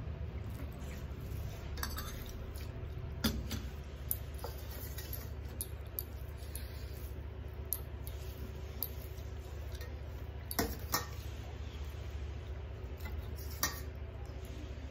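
Metal plates and a steel serving bowl clinking now and then as rice and curry are mixed and eaten by hand and served with a spoon: a few sharp, short clinks, two close together about ten and a half seconds in, over a steady low hum.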